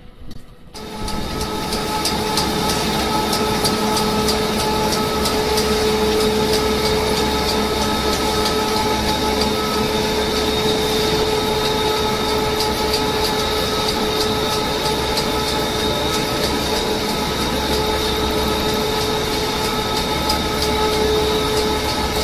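Tyre recycling line machinery running: a steady loud mechanical din with a constant whine and a dense fine rattle, from conveyors and a vibrating screen handling crumb rubber. It comes in abruptly about a second in.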